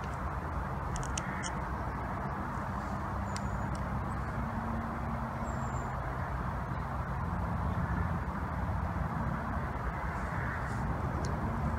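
Diesel engines of a slow-moving engineering train, a GBRf Class 66 locomotive with a high-output ballast cleaner, running as it approaches through a tunnel: a steady low drone that grows slightly louder near the end. A few short bird calls sound above it.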